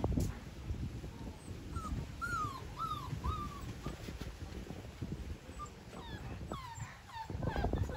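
Chocolate Labrador puppies whimpering in short rising-and-falling whines, a run of four about two seconds in and a few more near the end, over the scuffling of paws on a quilt. They are being weaned and are whining as they chase their mother, who won't let them nurse.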